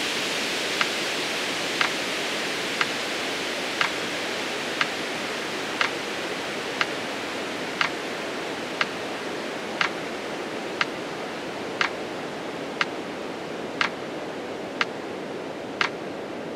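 Metronome ticking once a second, counting out the slow exhale of the breathing exercise, over a steady rushing hiss.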